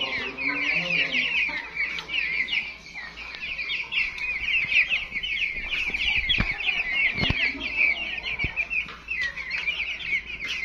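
A flock of young silkie chickens peeping and chirping together: a dense, continuous chorus of many short, high calls overlapping. A few soft low knocks come in the middle.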